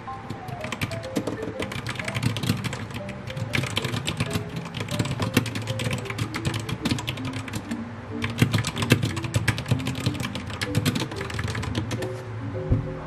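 Rapid typing on a compact mechanical keyboard, a dense run of clacking keystrokes that stops shortly before the end, over a mellow background song.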